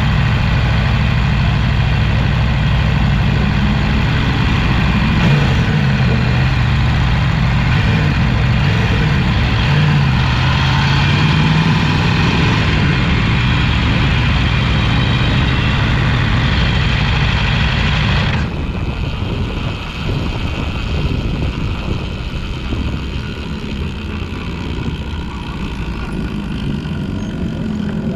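Sport motorcycle engine idling steadily with a slight waver in pitch, then cutting off suddenly about eighteen seconds in, leaving a rougher, quieter rumble.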